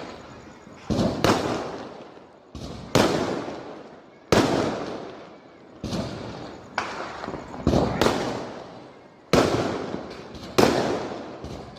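Firecrackers going off one after another: about ten sharp bangs at uneven intervals, roughly a second apart, each trailing off over about a second.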